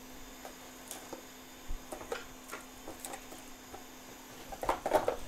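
Scattered small clicks and taps of parts being handled on a repair workbench, with a louder cluster of clicking and rustling near the end, over a steady faint electrical hum.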